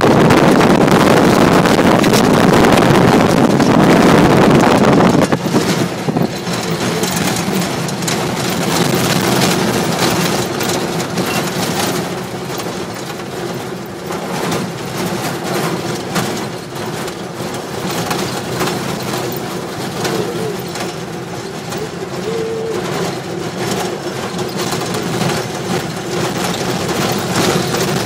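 Old four-by-four jeep driving over a desert sand track, heard from inside the cab: the engine runs steadily while the bodywork keeps up a stream of knocks and rattles. A loud rushing noise covers the first five seconds or so.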